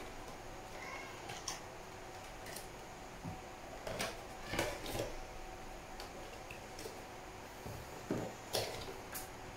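Scattered light knocks and clicks of objects being handled on a desk, loudest in a cluster about four to five seconds in and again near the end, over a faint steady hum.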